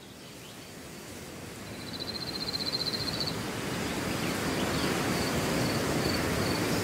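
Outdoor nature ambience fading in: a steady rushing noise that grows louder, with high, rapid trills now and then, the longest about two seconds in.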